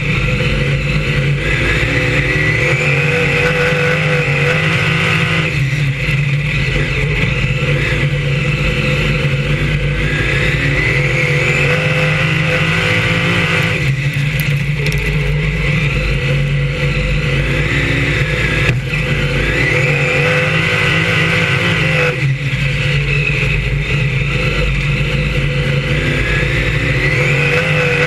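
On-board sound of a BriscA F1 stock car's V8 engine racing on a shale oval. It revs up in a long rising sweep along each straight and briefly drops as the throttle is eased into the bends, about every eight seconds.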